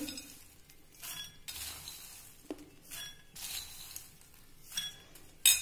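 Dry roasted corn kernels being added to a small glass bowl, rattling and clinking against the glass in a series of short bursts, with a sharp clink near the end.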